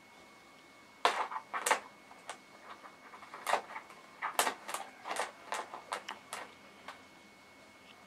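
A cat pawing at a bowl of smooth pebbles lined with a plastic bag: irregular clacks of the stones knocking together, with the plastic rustling. The clacks start about a second in and die away a second before the end.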